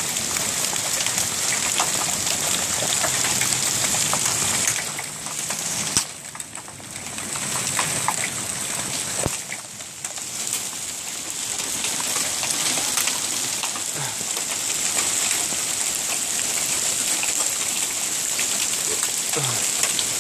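Hailstones, some quarter-sized, falling thick and hitting the house, cars and ground: a dense, steady hiss of countless small hits, dipping briefly twice.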